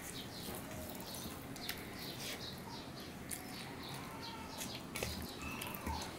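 Close-up eating sounds: fingers mixing rice and curry against a steel plate, with wet chewing and lip smacks, a run of short clicks and smacks.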